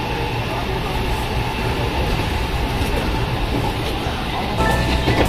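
Running noise of an electric commuter train heard from inside the car: a steady low rumble and rush of wheels on rail. A few steady higher tones join near the end.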